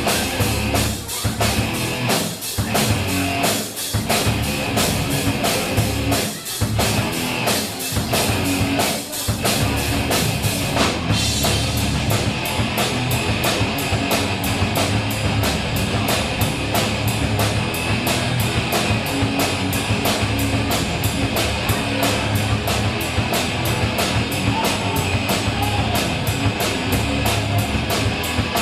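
Rock music with a drum kit and guitar: a few stop-start breaks in the first ten seconds or so, then a steady driving beat from about eleven seconds in.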